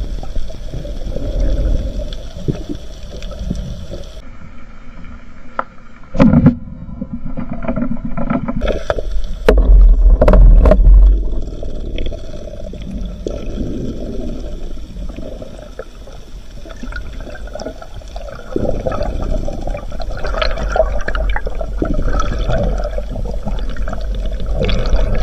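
Muffled underwater sound of water rushing and gurgling around a moving diver, with a few sharp knocks about six and ten seconds in and the loudest surge around ten seconds in.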